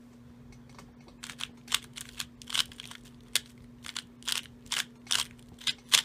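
Rubik's Cube being turned face by face as a scramble is applied: a run of short plastic clacks, about two a second, starting about a second in.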